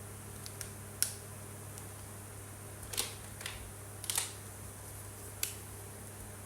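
A handful of short, sharp clicks or scratches, about five, scattered over a steady low electrical hum and hiss.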